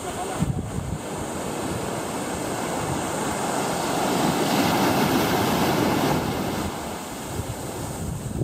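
Ocean surf breaking on a sandy beach, swelling to its loudest about halfway through as a wave breaks and then easing off, with wind buffeting the microphone.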